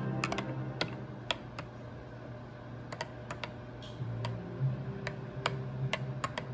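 Metal spoon stirring milk tea in a glass cup, clinking against the sides in quick, irregular taps.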